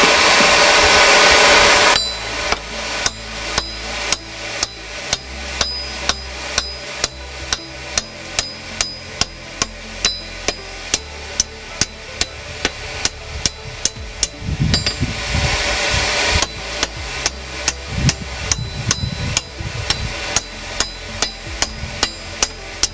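Hand hammer striking hot steel on an anvil in a quick, steady rhythm of about two to three blows a second, each with a short metallic ring, as the sword's handle section is smoothed and rounded. Twice, near the start and about two-thirds of the way through, a loud rushing noise lasts about two seconds.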